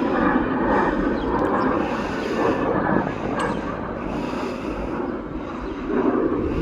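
Jet airliner engine noise, a steady rush that eases a little over the seconds, with wind buffeting the microphone.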